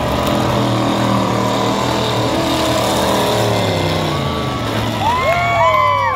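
Demolition derby pickup trucks' engines running hard and revving as they spin in the dirt and ram each other. Several rising-and-falling whoops come in near the end.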